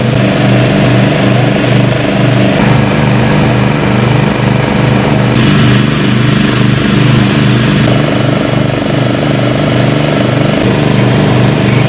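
An engine running steadily close by, an even, pulsing drone, with a few sudden small shifts in its tone.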